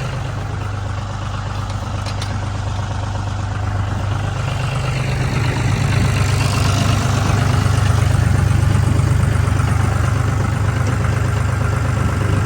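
An engine running steadily, growing louder about halfway through.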